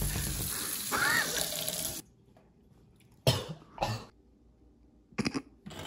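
Kitchen faucet running into a stainless-steel sink, cutting off abruptly about two seconds in. A few short, sharp sounds follow.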